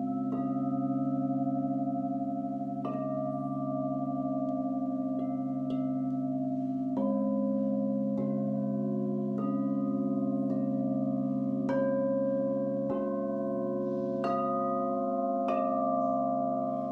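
Crystal singing bowls ringing, several tones sounding together over a steady low drone. A bowl is struck about once a second, each strike adding a new note that rings on over the others.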